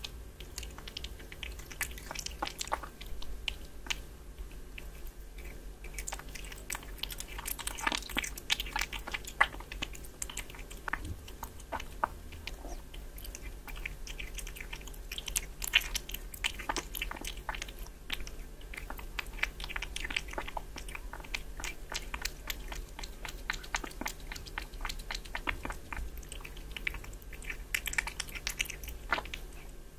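Kitten chewing raw meat from a bowl: a dense, uneven run of small clicks and bites throughout, over a low steady hum.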